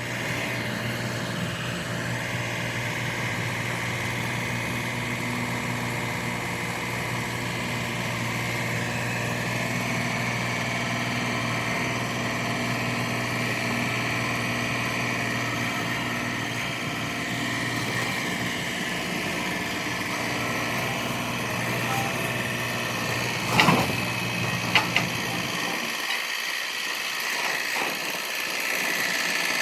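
Vermeer SC48TX stump grinder's engine running steadily, with a sharp knock about two-thirds of the way through and a couple of clicks a second later.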